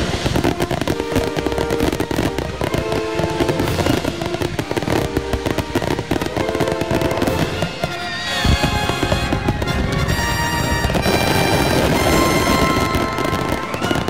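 Grand finale barrage of fireworks: shells bursting in quick, overlapping succession with no gaps, with music playing along underneath. The bursts are densest and loudest in the second half.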